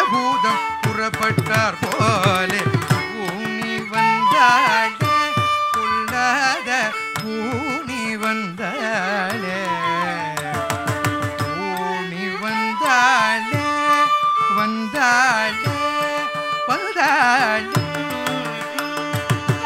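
Carnatic music accompanying a Bharatanatyam dance drama: a male vocalist sings heavily ornamented, gliding melodic lines over mridangam drum strokes, with flute and violin following the melody.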